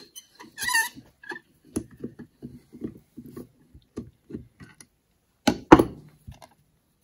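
Flathead screwdriver working a jet out of a Motorcraft 2150 carburetor body: a string of light clicks and taps, then one louder knock about five and a half seconds in.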